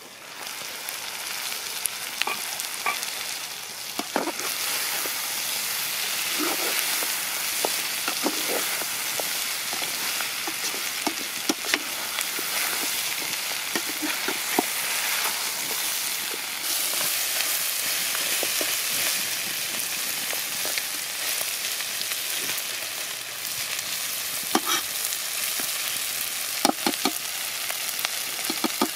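Chicken frying and sizzling in an aluminium pot, stirred with a metal ladle that clinks and scrapes against the pot now and then.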